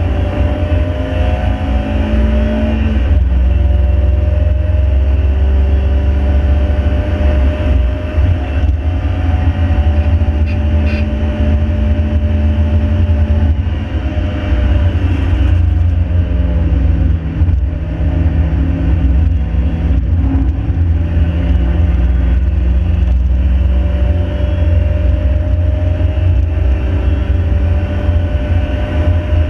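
Mk5 Ford Fiesta's 1.7 Puma four-cylinder engine pulling hard through the gears, its note climbing steadily, dropping sharply at an upshift about three seconds in, and falling and climbing again near the middle. A heavy low road and wind rumble runs under the engine throughout.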